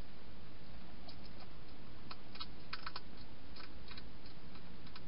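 A European hedgehog crunching dry food inside a plastic feeding box: irregular sharp clicks and crackles, busiest around the middle, over a steady hiss.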